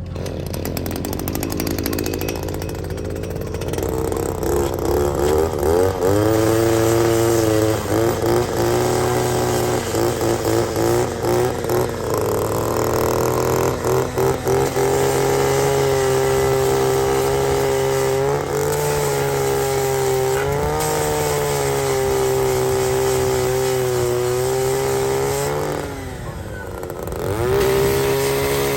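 Angle grinder sharpening the teeth of a Denis Cimaf mulcher. Its whine sags and recovers as it bears on the teeth, with a run of short dips in the middle. Near the end it winds down and spins back up.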